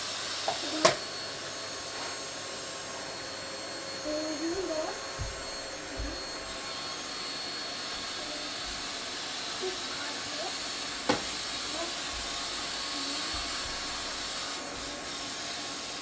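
Vacuum cleaner running steadily: an even rush of air with a steady whine over it. Two sharp knocks stand out, one about a second in and one about eleven seconds in.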